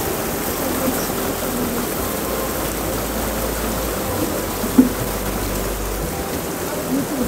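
Steady rushing of a fast-flowing, rocky mountain stream running high.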